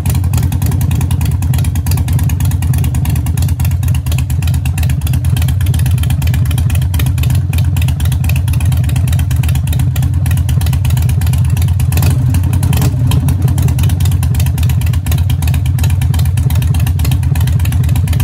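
Harley-Davidson Forty-Eight's 1200 cc V-twin idling steadily through Vance & Hines Shortshots exhaust with the baffles removed: a loud, deep, even exhaust beat, at about 91–92 dB right by the pipes.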